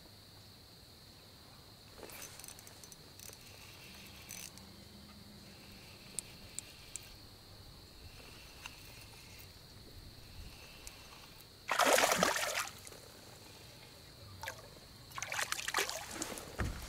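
Water splashing and sloshing at the side of a small fishing boat, with two louder splashes, a short one about twelve seconds in and a longer one near the end. A steady high hum and a few small clicks run under them.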